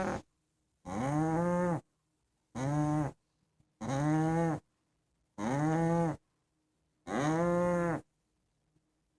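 Loud snoring, one droning pitched snore with each breath, each under a second long and arching slightly up then down in pitch. The snores come at an even pace, about one every one and a half seconds, with silence between.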